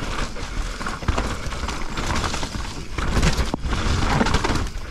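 Mountain bike descending a wet, muddy dirt trail: tyres running over the dirt, with the bike clattering and knocking over bumps, a sharp knock about three and a half seconds in, and wind rumbling on the microphone.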